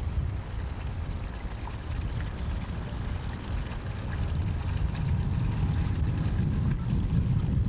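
Wind buffeting a camcorder's built-in microphone, a steady low rumble that grows a little stronger in the second half.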